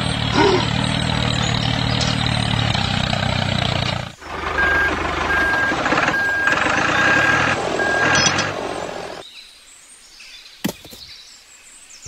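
Tractor engine running steadily until it cuts off about four seconds in. A vehicle's reversing beeper follows, beeping at an even pace for about four seconds over engine noise. Then the sound drops much quieter, with a single click near the end.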